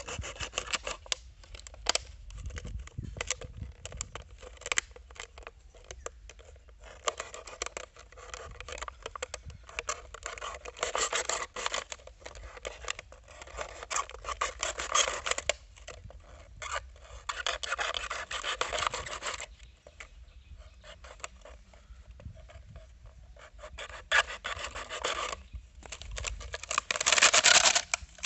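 A large knife blade sawing and scraping through a thin plastic drink bottle in short rasping strokes, in clusters with brief pauses, with a louder stretch near the end.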